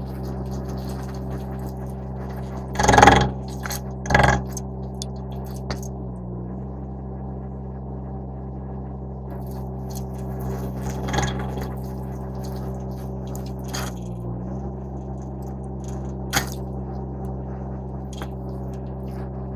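A Derette V1000 mini skid steer's engine runs steadily, driving a stump grinder attachment as it cuts into a stump. The engine pitch dips briefly twice as it takes load. Sharp cracks of wood breaking come loudest about three and four seconds in, with lighter ones later.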